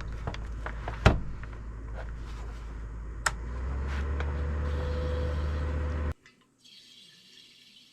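Electric fan running, a steady rushing noise with a deep rumble and a few sharp knocks, cutting off abruptly about six seconds in.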